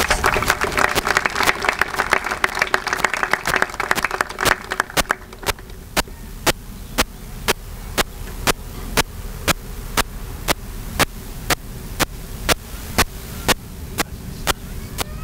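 Audience applauding for about five seconds, then dying away. Throughout, a sharp click repeats evenly about twice a second.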